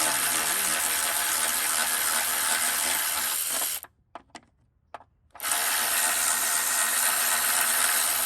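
Handheld power tool running in two steady runs of about four and three seconds with a short pause between, spinning a fastener on a car's underbody panel. The nut keeps turning without coming off: a plastic nut that the owner thinks could be stripped internally.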